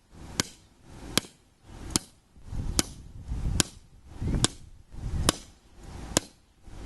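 Sledgehammer striking the end of a metal electrical conduit pole over and over, flattening it, about eight sharp blows evenly spaced a little under a second apart.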